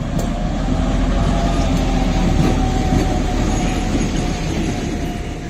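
Train hauled by an M62 'Szergej' diesel locomotive running on the rails, a steady rumble that grows louder over the first second or so and eases off toward the end.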